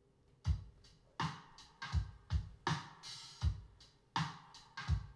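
Music played from a vinyl record on a JVC turntable through a Kenwood stereo system. A drum beat starts about half a second in, with regular heavy kick drum hits and cymbals.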